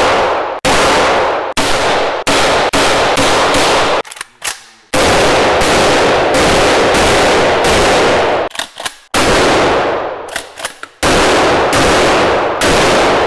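Gunfire: loud shots, some single and some in quick strings that run together, each followed by a long ringing tail.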